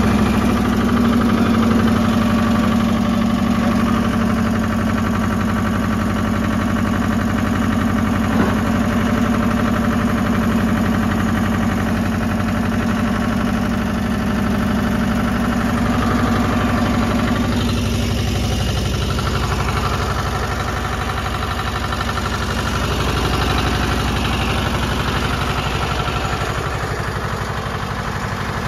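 Air-cooled 30 hp engine of a Goldoni 230 compact tractor running steadily at idle, just after being started with the key.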